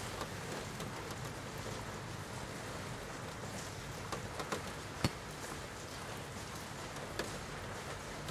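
Steady rain falling, with a few light clinks of a metal spoon against an enamel mug about four to five seconds in and once more near the end.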